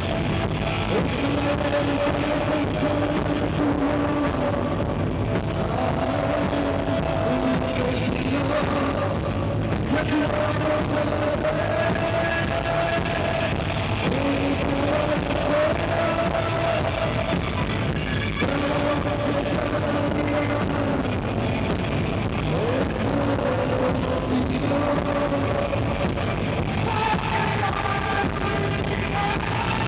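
Rock band playing live: electric guitars, bass and drums with a singer's vocal line over them, loud and steady.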